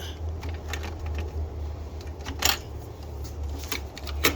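A few sharp clicks and knocks of parts being handled on a cordless table saw, the loudest about halfway through, over a steady low hum.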